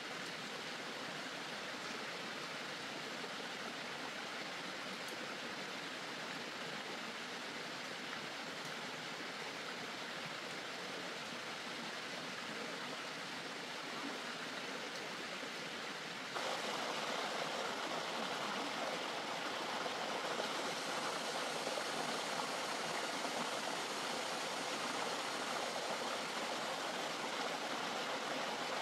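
Steady rushing of flowing water, like a stream. It becomes suddenly louder a little over halfway through.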